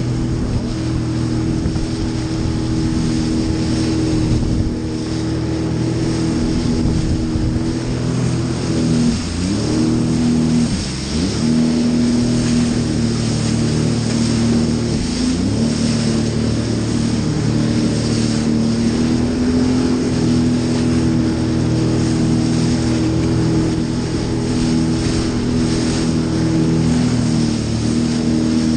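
Jet ski engine running at high revs at a steady pitch, its note dropping sharply and climbing back three times, about 9, 11 and 15 seconds in, as the throttle is eased and reopened. A steady rushing noise runs under it.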